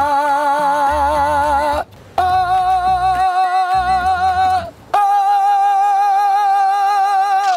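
A man singing three long held notes as a vocal warm-up. The first note has a wide vibrato, and the next two are a little higher and held steady, with short breaks about two seconds in and near five seconds.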